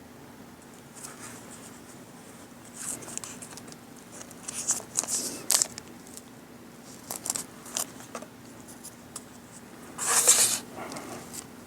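Cellophane plastic crinkling and rustling in short bursts as it is handled, with the loudest burst about ten seconds in.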